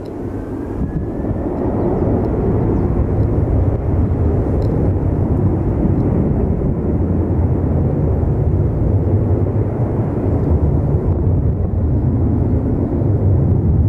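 Boeing 747-400 freighter's four jet engines spooling up to takeoff power, a deep rumble that grows louder over the first couple of seconds and then holds steady, with a faint rising whine at the start.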